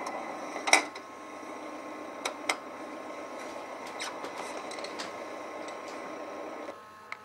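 Iveco Daily 30-8 diesel engine running, heard thin and tinny through laptop speakers, cutting out near the end. A few sharp clicks sound over it.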